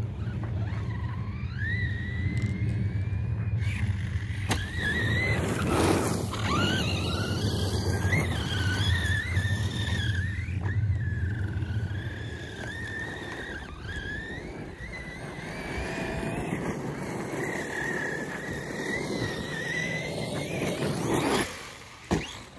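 Brushless motor of a Team Associated Rival MT8 1/8-scale RC monster truck on a 6S battery whining, the pitch rising and falling with the throttle over the rush of the tyres on the ground. Near the end the sound drops away, followed by a couple of sharp knocks.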